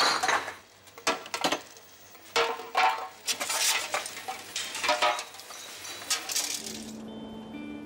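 Empty bottles clinking and clattering in groups of a few knocks as they are fed into a reverse vending machine for deposit return. Guitar music starts near the end.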